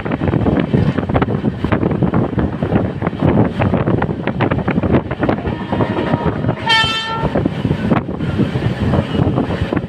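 Running noise of a moving LHB passenger coach: a steady rumble with irregular clatter of wheels over the rails. About two-thirds of the way through, the WAP-7 electric locomotive's horn gives one short blast.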